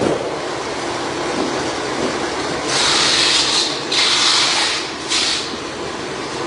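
Workshop machinery running with a steady drone, cut by three harsh, hissing scrapes of sheet metal, about three to five and a half seconds in.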